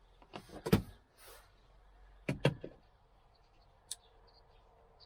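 A few sharp knocks and clicks of hand tools and plastic interior trim being handled inside the car: a couple early, a quick pair about two and a half seconds in, and a small tick near four seconds.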